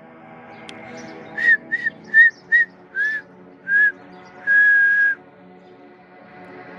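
A person whistling: a run of six short, pure notes, then one longer held note about four and a half seconds in, over faint steady low tones.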